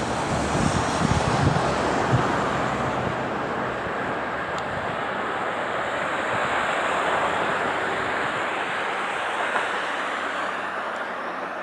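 Distant jet airliner engine noise, a steady roar. Wind buffets the microphone in the first couple of seconds.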